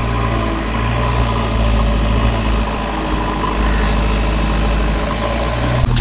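Diesel engine idling steadily with a low, even hum.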